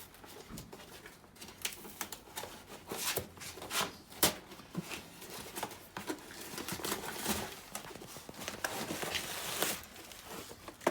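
Packaging being handled and torn open while a parcel is unboxed: irregular crinkling, rustling and tearing with many small clicks, and one sharp snap about four seconds in.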